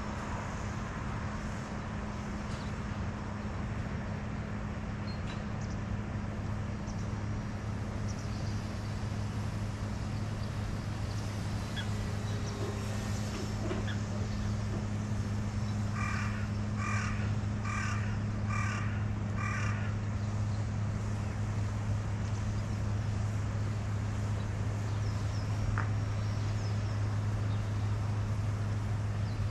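A crow cawing five times in quick even succession, over a steady low hum.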